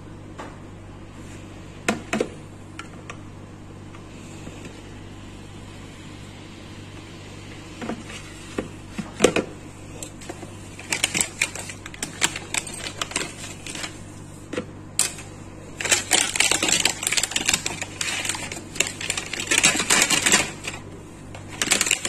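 A hard plastic rice-steamer pot being handled, knocking a few times. Then a plastic bag of rice rustles and crinkles, with dense crackling for several seconds near the end, over a low steady hum.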